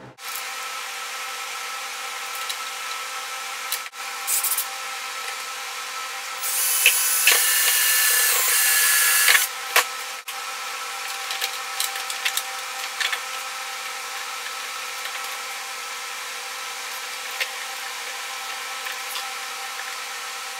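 Cordless drill running for about three seconds, drilling into the plastic dash panel, a few seconds in. Clicks and knocks of the panel being handled come around it, over a steady background hum.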